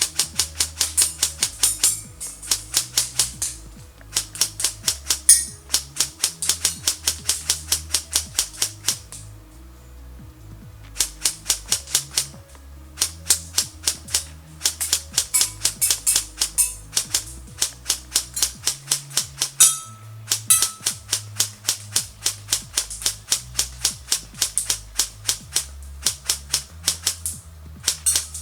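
Airsoft electric rifle (an E&L AKM-based Zastava M70 build) firing rapid full-auto bursts, a fast run of sharp clicks about ten a second, in strings of one to several seconds with short pauses between them. Background music plays underneath.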